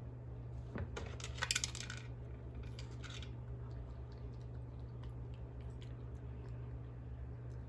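Dry kibble clattering out of an automatic pet feeder into its bowl as a cat paws the feeder's crank: a cluster of clicks and a short spill about a second in, a second smaller spill about three seconds in, then scattered light ticks. A steady low hum runs underneath.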